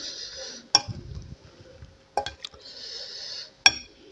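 Metal spoon and fork clinking against a glass bowl while stirring and lifting noodles: three sharp clinks about a second and a half apart, the last the loudest, with soft rustling between.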